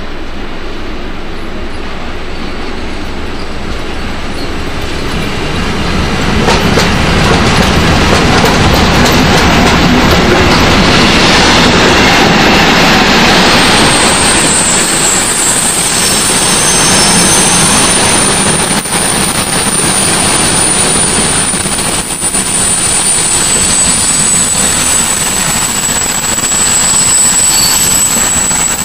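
Freight train double-headed by SBB Re 4/4 II and Re 6/6 electric locomotives passing through the station: the rumble grows louder over the first several seconds, then a long string of intermodal wagons rolls by with a steady roar and a few wheel clacks. A high, thin wheel squeal sets in about halfway through and keeps going.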